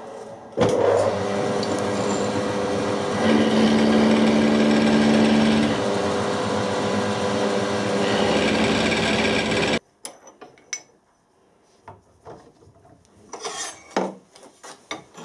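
Milling machine running with its end mill cutting the end of a steel bar square, a steady machining noise with a stronger tone for a couple of seconds in the middle. It cuts off sharply about ten seconds in, leaving only a few light handling clicks.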